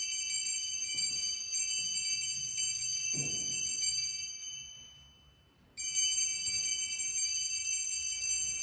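Altar bells shaken at the elevation of the host during the consecration, signalling the moment to the congregation. There are two long rounds of bright, high ringing: the first fades out about halfway through, and the second starts sharply about a second later.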